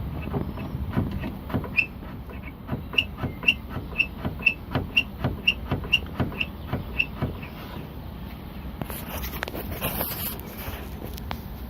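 Rear body panel of a Smart Roadster squeaking: short, high squeaks repeating about twice a second over a low rumble, stopping about seven seconds in.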